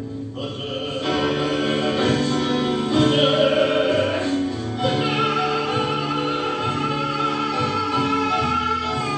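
Show-tune music: voices singing long held notes, with no clear words, over instrumental accompaniment.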